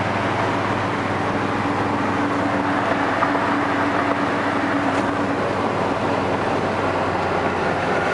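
1972 Oldsmobile Cutlass 442's V8 running while driving, heard from inside the cabin with road noise. A steady hum runs under it and stops about five seconds in.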